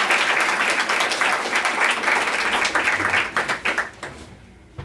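Audience applauding. The clapping thins out and dies away about four seconds in, leaving a few last scattered claps.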